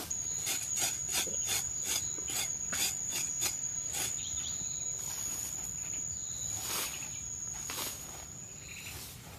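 A wooden stick scraping and striking loose dry soil in quick strokes, about four a second for the first few seconds, then a few single scrapes later. Underneath is an insect's steady high-pitched buzz that stops shortly before the end.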